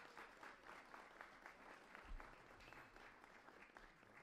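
Faint applause: many quick, irregular claps.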